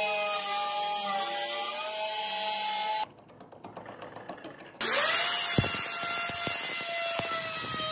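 Electric plunge router running with a steady whine as it cuts wood. About three seconds in, it cuts abruptly to a much quieter stretch of faint scraping and ticks from a hand chisel paring a groove. Near the middle, the router spins up again and runs steadily, with several sharp knocks as the bit cuts a notch.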